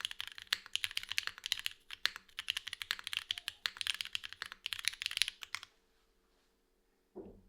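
Fast continuous typing on a Geonworks F1-8X V2 mechanical keyboard: lubed Cherry MX Hyperglide Black linear switches in a gasket-mounted aluminium plate with no foam, under GMK keycaps. The keystrokes stop about five and a half seconds in, and a single short low thump follows near the end.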